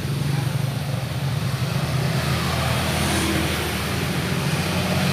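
An engine idling steadily, with a hiss that grows louder about two seconds in.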